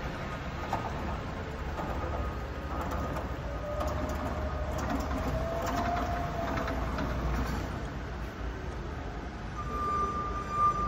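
Battery-electric Raymond swing mast turret truck travelling on a concrete floor: a low rumble from the wheels, with the electric drive's whine rising and then falling in pitch in the middle. A steady high tone comes in near the end.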